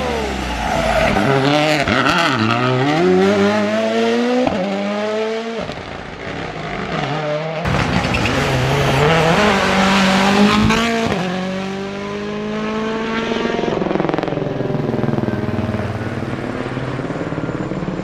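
Rally1 cars at full attack through a tarmac corner, first a Toyota GR Yaris Rally1 and then a Hyundai i20 N Rally1, each with a 1.6-litre turbocharged four-cylinder. The engines drop in pitch on the way into the corner, then rise through the gears on the way out, with a sharp break in the note at each upshift. Near the end a steadier, quieter engine note comes from a car further off.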